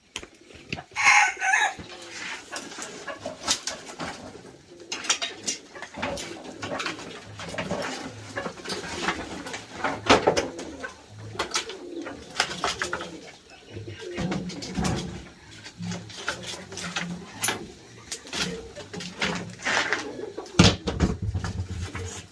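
Birds calling over repeated clicks and knocks, with a short rising call about a second in.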